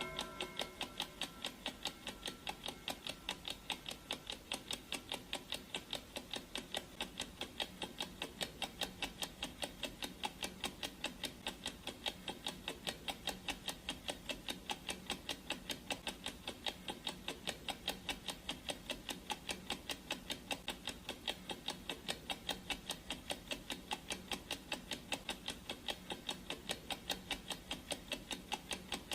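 Clock ticking sound effect: quick, evenly spaced ticks, several a second, keeping a steady rhythm.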